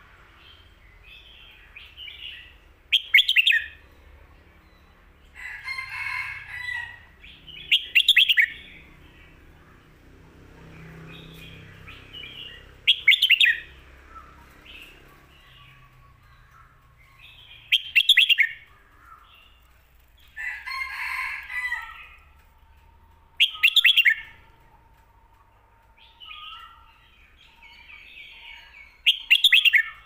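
Red-whiskered bulbul singing: a short, loud phrase of quick notes about every five seconds, six times, with softer warbling calls between.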